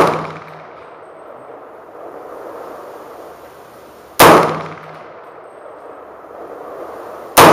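Rifle shots from an AR-15 chambered in .300 AAC Blackout, fired singly at a slow pace. Two sharp reports come about three seconds apart, each with a short ringing decay, and the tail of a previous shot is fading right at the start.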